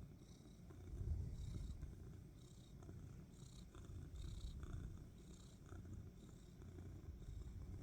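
Domestic cat purring continuously, a deep low rumble that swells about a second in and then holds steady.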